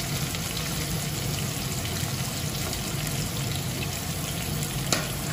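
Chopped onions sizzling steadily as they go into hot oil in a kadai, with a brief sharp tap near the end.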